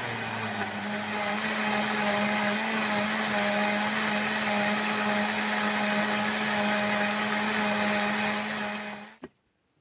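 High-powered countertop blender running at a steady high speed, whirling a thin, fully liquid green smoothie. Near the end the motor winds down quickly, followed by a single sharp click.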